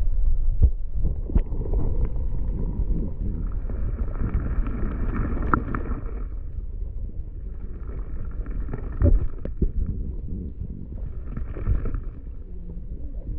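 Muffled underwater sound from a submerged camera: a low rumble of moving water with scattered knocks from handling. A faint, even hum rises above it three times, each lasting a second or three.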